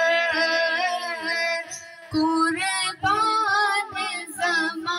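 A man's high voice singing a naat, an Urdu devotional song, in long, wavering held notes, with a short break about two seconds in before the next phrase.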